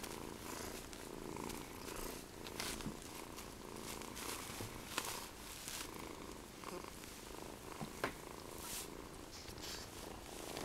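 Kitten purring steadily without a break, with a couple of short clicks about five and eight seconds in.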